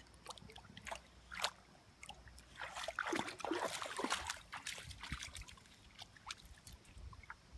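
A dog wading through a shallow creek, its legs splashing and sloshing in the water, with the splashing busiest about three to four seconds in.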